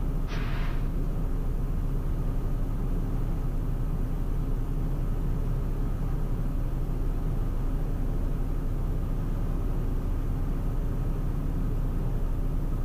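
Steady cockpit noise of a Cessna Citation CJ4 in the climb: rushing airflow and the hum of its twin Williams FJ44 turbofan engines, with a short hiss just after the start.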